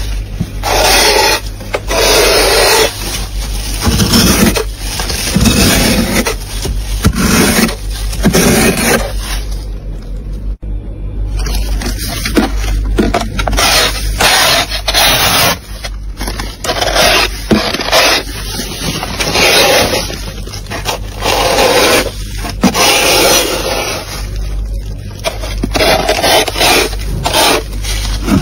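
Thick frost being scraped off the inside walls of a freezer with a hand tool, in repeated scraping strokes about one a second, with a short lull near the middle.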